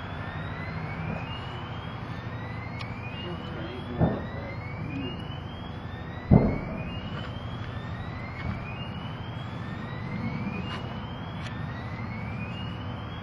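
Munitions cooking off at an ammunition point hit by a mortar: two booms about four and six seconds in, the second the louder, over a steady low drone. A rising alarm whoop repeats about once a second.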